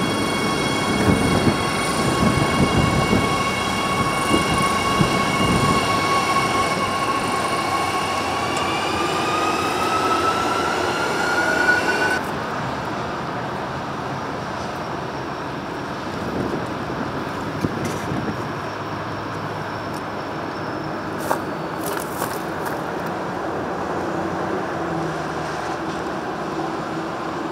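Adelaide Metro electric train passing close, its traction motors giving a steady whine that rises in pitch over a few seconds as it picks up speed. About twelve seconds in it cuts abruptly to a fainter, steady rumble of a train running in the distance.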